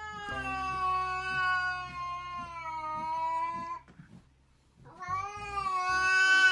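A domestic cat giving two long, drawn-out meows. The first lasts about four seconds and the second starts about five seconds in after a short pause.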